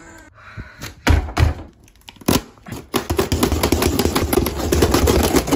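A plastic-wrapped, strapped cardboard box being opened by hand. A few dull thumps and a knock from the box, then about two and a half seconds of dense crackling and tearing from its wrap and tape.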